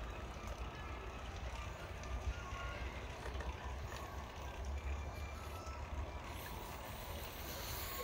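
Riding a bicycle along a paved path: a steady low rumble of wind and rolling noise on the microphone, with a few faint ticks.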